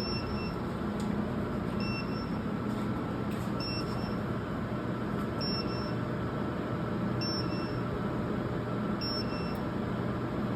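Modular UPS alarm buzzer giving a short high beep about every two seconds over the steady hum of the cabinets' cooling fans: the battery-mode alarm of a UPS running on its batteries with its mains input cut off.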